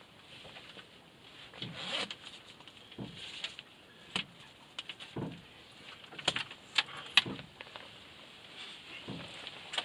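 Fabric camper top on a small sailboat being taken down by hand: irregular rustling and shuffling of the cloth, with several sharp clicks and knocks from the cover's metal frame or fittings, the loudest a little past the middle.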